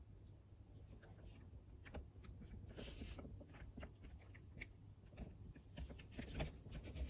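Faint handling noise: scattered small clicks, taps and rustles, with a few louder knocks near the end.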